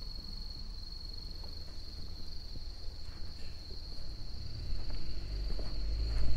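Evening insects trilling continuously in one steady high tone. A low rumble builds and grows louder in the last couple of seconds.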